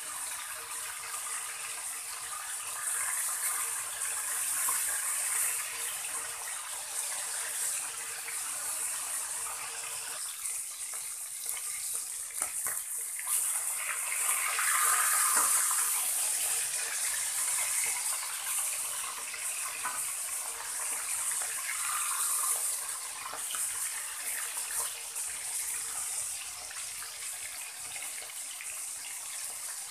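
Pork steaks sizzling in hot oil in a wok, a steady hiss. The sizzle swells for a couple of seconds around the middle as the steaks are turned with a metal spatula.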